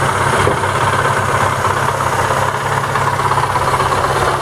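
ZAZ Lanos's MeMZ-317 1.4-litre petrol engine idling steadily with a dull knock. The mechanic places the knock not in the cylinder head but at the clutch housing, and suspects a loose flywheel or the gearbox.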